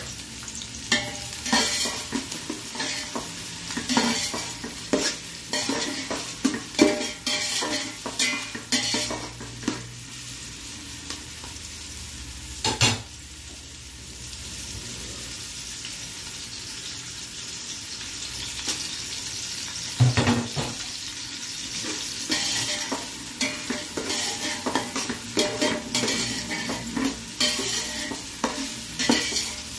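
Sliced onions sizzling in hot oil in a metal pot, with a slotted spatula scraping and knocking against the pot as they are stirred. The stirring comes in two spells with steadier sizzling between them.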